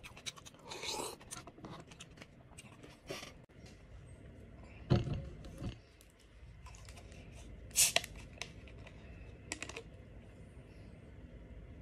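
Small clicks and scrapes of utensils and handling around a plastic bowl of noodle soup, a thump about five seconds in, then a plastic cola bottle's screw cap twisted open, with two short sharp hisses of escaping gas, about eight and nine and a half seconds in.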